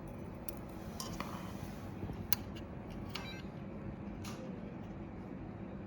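A handful of faint, sharp clicks and taps of small parts being handled and fitted into an RC model truck's gearbox linkage, about five in all and spread out, over a steady low background noise.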